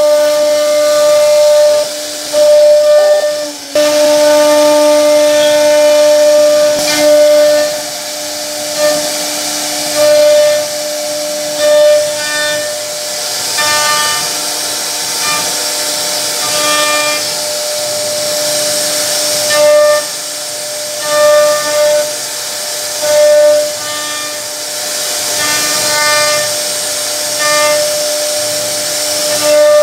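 CNC router spindle carving wood, a steady high whine over a hiss of cutting. The whine swells briefly every second or two as the bit works the pattern.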